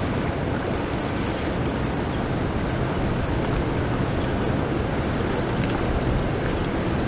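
Steady rush of fast river water running over rapids: a continuous, unbroken noise, strongest and deepest in the low end.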